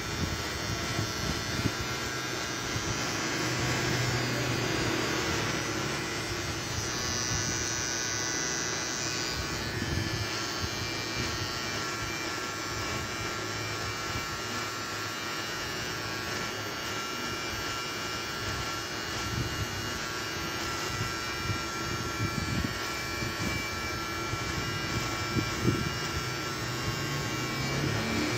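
Electric beard trimmer running steadily, its blades cutting beard hair along the neck and jawline.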